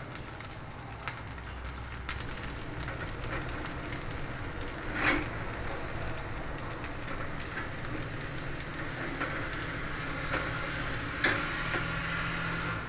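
Yellow sticky rice frying in oil in a frying pan over a high gas flame, crisping on the bottom: a steady sizzle with scattered small crackles. One brief louder noise about five seconds in, and another near the end.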